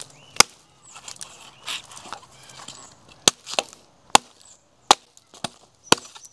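A blade chopping into the husk of a tender coconut held on a log: about six sharp, separate chops, one near the start and the rest closer together in the second half, with faint softer scraping between them.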